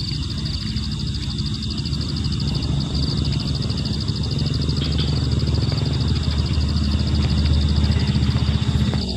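Night insects trilling steadily in a rapid high pulse, over a low rushing rumble that grows louder and then cuts off suddenly near the end.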